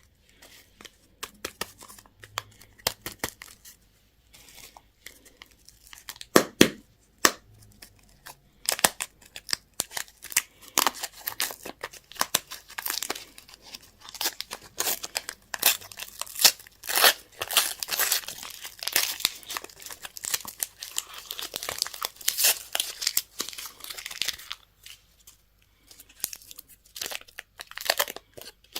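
Candy and toy packaging being torn open and crinkled by hand: scattered crackles and a few sharp snaps at first, then dense continuous crackling for most of the stretch, thinning out near the end.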